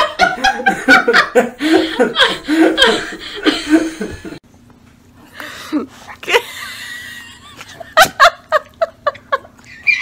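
Laughter for the first four seconds, cut off abruptly; after a quieter stretch, a baby laughs in short rapid bursts, about four a second, near the end.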